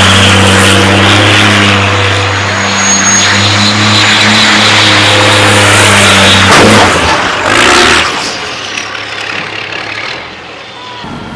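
Race truck's diesel engine held at steady high revs during a burnout, with the rear tyres spinning on the tarmac. About six and a half seconds in the engine note breaks off, and shortly after the sound falls to a quieter hiss.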